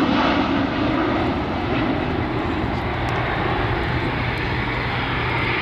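Boeing P-8 Poseidon's twin CFM56 high-bypass turbofan engines running steadily as the jet passes, with a high whine coming up near the end.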